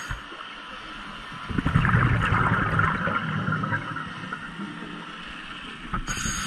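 A scuba diver breathing through a regulator underwater. A quieter stretch gives way, about a second and a half in, to a loud rush and rumble of exhaled bubbles that fades over a few seconds.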